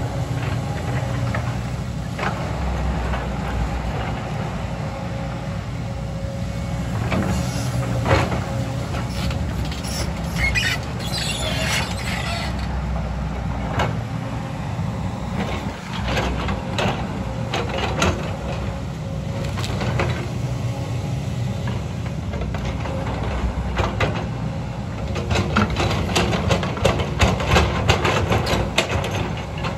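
JCB 225 LC tracked excavator at work: its diesel engine runs steadily under load with a low rumble, while the bucket knocks and scrapes through rock and earth. A high metallic squeal comes about ten seconds in, and the knocking and clatter get dense and rapid near the end.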